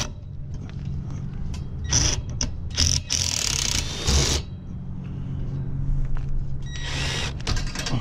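Cordless drill with a long extension bit run in several short bursts, the longest about a second, unscrewing fasteners at the hub of a blower wheel.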